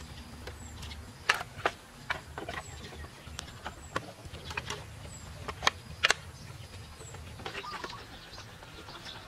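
Green bamboo poles knocking and clacking against each other and the frame as they are fitted into a wall, with sharp knocks at irregular intervals, the loudest about a second in and a close pair about six seconds in. A few faint high bird chirps sound through it.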